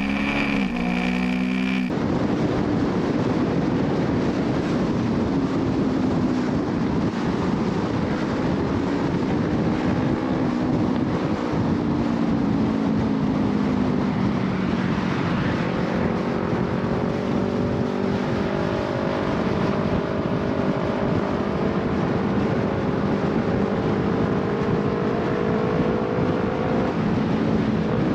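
For about the first two seconds, a 2008 Kawasaki Ninja 250's parallel-twin engine running under way, heard close up; it cuts off abruptly. Then a steady rush of wind and road noise from a vehicle moving at speed, with an engine drone beneath it that rises slowly in pitch over the second half.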